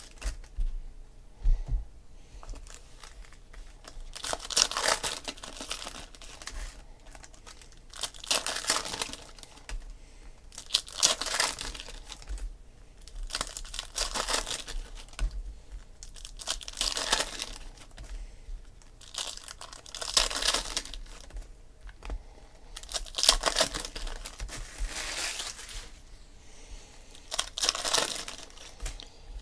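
Foil wrappers of 2016 Panini Phoenix football card packs crinkling and tearing as they are opened by hand, in about ten short rustling bursts a few seconds apart.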